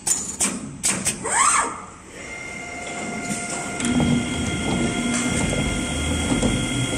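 Richpeace automatic furniture sewing machine running: a few knocks at the start, a whine rising in pitch between one and two seconds in, then a steady multi-tone motor whine over low rumbling as the sewing head stitches and travels along its gantry.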